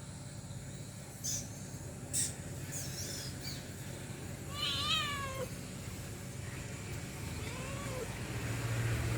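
Domestic cat meowing twice: one clear wavering meow about five seconds in, then a fainter, shorter one near the end. Two brief sharp taps come earlier, over a steady low hum.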